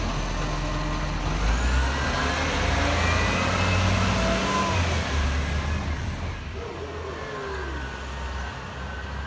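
Side-loader garbage truck's diesel engine pulling away and accelerating, a steady low rumble with a thin high rising whine a couple of seconds in. About six seconds in, the sound drops to a quieter, more distant engine rumble.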